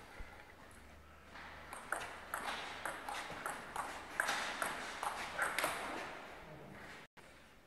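A table tennis rally: the celluloid ball clicking in quick alternation off the bats and the table, a dozen or so hits at a few per second. It starts about two seconds in and stops near six seconds when the point ends.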